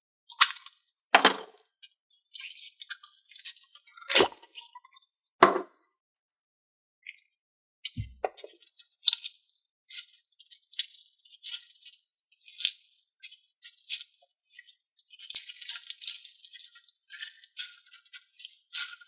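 Putty being squeezed and worked by hand: irregular crackling and squishing, with a few fuller squishes early on and a single thump about eight seconds in.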